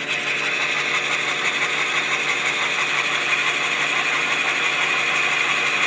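Vintage Hercus metal lathe running steadily while turning maple stock into a mower roller, a continuous even machining noise.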